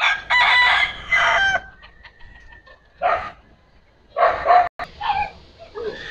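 Roosters crowing: one long crow just after the start, then shorter calls about three and four seconds in.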